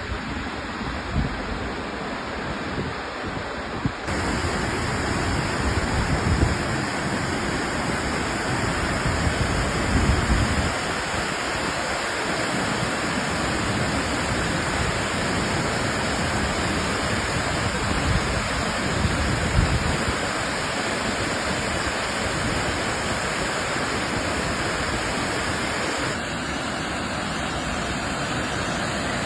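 Waterfall: water falling steadily in a continuous rushing hiss. The sound steps up abruptly, louder and brighter, about four seconds in, and shifts again suddenly near the end, as at joins between recordings.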